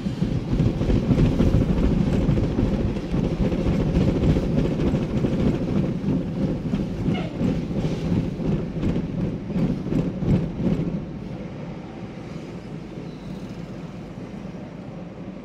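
Car tyres running over painted transverse rumble strips, heard inside the cabin as a loud low rumble with rapid clatter. About eleven seconds in it drops to quieter, ordinary road noise as the car leaves the strips.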